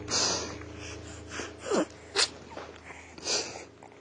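A few short, breathy vocal puffs and a quick falling sigh from a person, with a faint steady low hum underneath.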